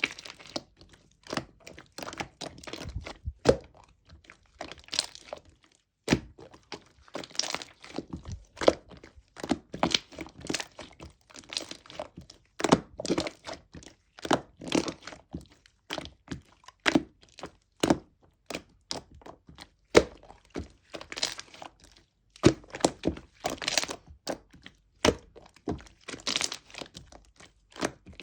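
Slime being squeezed and pressed by hand, giving an irregular run of sharp clicks, pops and squishes. The slime is slightly melted.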